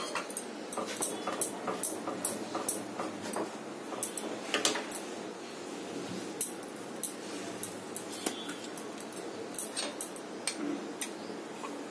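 Thick milk, curd and mango mixture boiling in a non-stick pan on a gas burner, with bubbles bursting in irregular sharp pops and ticks, one to three a second, over a steady low background noise.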